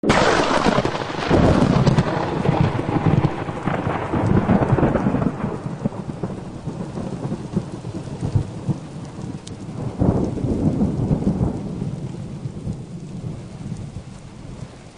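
Thunderstorm sound: rolling rumbles of thunder over a steady hiss like rain. It starts abruptly, swells again about ten seconds in, and fades out gradually toward the end.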